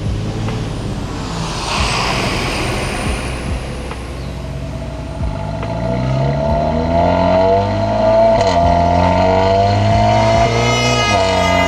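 Audi A4 B9's 2.0 TFSI turbocharged four-cylinder engine pulling under acceleration, its note rising in pitch, dropping sharply at a gear change about eight seconds in, then climbing again before falling back near the end.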